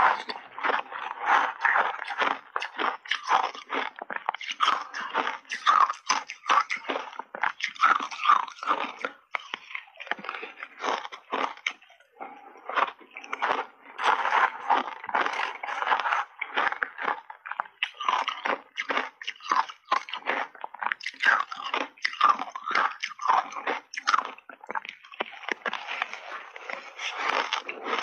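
Mouth crunching and chewing refrozen shaved ice with milk powder, close to the microphone: dense, irregular crunches with a couple of brief lulls.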